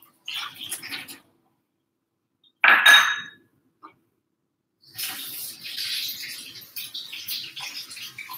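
Water from a kitchen tap running into a sink in uneven spells, with a loud clink that rings briefly about three seconds in.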